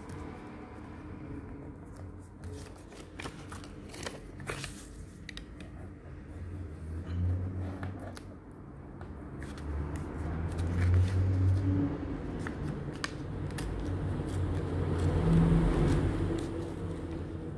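A sheet of paper being folded and creased by hand on a wooden table: rustling and crinkling with sharp crackles, and louder rubbing swells as the folds are pressed flat, loudest around the middle and near the end.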